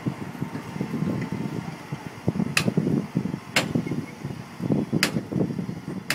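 Four sharp knocks, roughly a second apart, starting about two and a half seconds in, over a low, rough rumbling noise.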